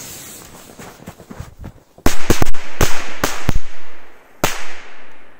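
Fuses of three Corsair 3 firecrackers (Komet, four bangs each) hissing, then, about two seconds in, a rapid string of about ten sharp bangs over two and a half seconds, the last one standing alone near the end.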